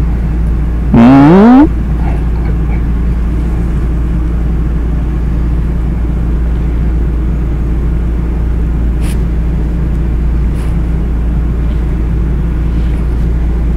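A steady low rumbling hum, with a short voice sound rising in pitch about a second in and two faint ticks near the end.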